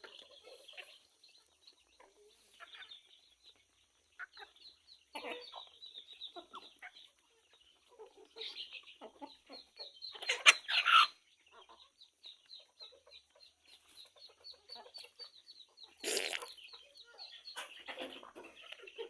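Chickens clucking, with scattered short calls throughout and louder bursts of calls about ten seconds in and again near sixteen seconds.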